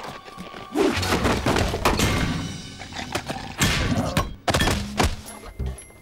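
Cartoon sound effects of a cartoon bear falling from a tall wooden wardrobe: a rapid series of heavy thuds, knocks and crashes, with tools clattering onto a wooden floor. Background music plays under it and comes forward near the end.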